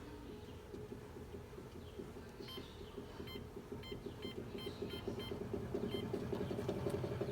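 True 450 treadmill motor running with a rapid rhythmic pulsing hum that grows louder as it speeds up: the motor noise the owner is complaining about. About halfway through, the console beeps several times in quick succession.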